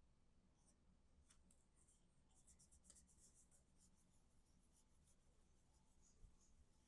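Near silence, with faint rustling and scratching of paper card stock being handled and pressed, mostly between about two and four seconds in, and a few tiny clicks.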